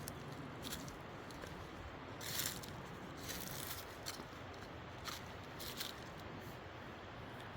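Footsteps crunching and rustling through dry leaves and brush, irregular single steps about once a second over a faint steady outdoor hiss.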